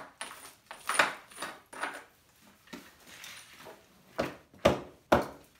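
Hammer blows knocking cement render off the stone wall of a fireplace: about six sharp, irregular clinking strikes, the three loudest coming close together near the end.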